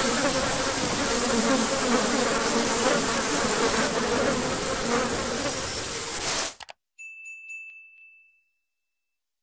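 Steady hiss of rain with a low buzzing hum under it, cut off abruptly about six and a half seconds in. A moment later comes a short, bright ding with a few clicks from a subscribe-button animation, then silence.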